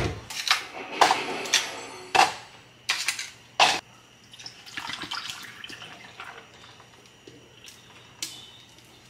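Ice cubes cracked out of a plastic ice-cube tray and dropped into a plastic cup: a run of sharp clacks over the first few seconds. This is followed by a softer, steady stretch of liquid, juice poured over the ice.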